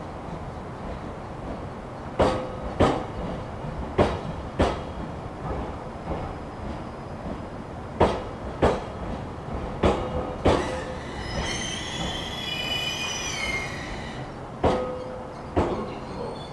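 JR East E721 series 500-subseries electric train rolling slowly along the platform. Its wheels click over a rail joint in pairs of sharp beats, axle after axle, over a steady rumble. A high, wavering wheel squeal comes in for about three seconds past the middle.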